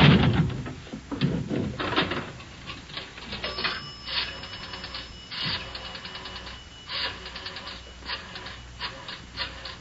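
Rotary pay telephone being dialled, a radio-drama sound effect: after a couple of knocks, the dial is turned and released several times, each time spinning back with a quick run of clicks. A thin steady tone sounds for a few seconds in the middle.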